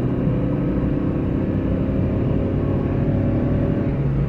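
Maruti Suzuki Eeco's four-cylinder petrol engine held at high revs in first gear, heard from inside the cabin, running steadily with a light 'tak tak' tapping from the rear silencer. The owner takes the tapping for an early-stage silencer problem that will get louder as it wears.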